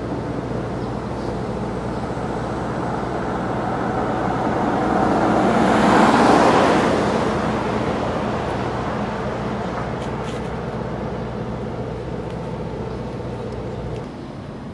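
Road traffic with a car passing by, building to its loudest about six seconds in and then fading, over a steady low hum that drops away near the end.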